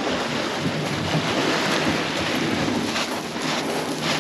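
Water taxi's outboard engine running at idle under a steady wash of wind noise, with a few crunching steps on beach gravel near the end.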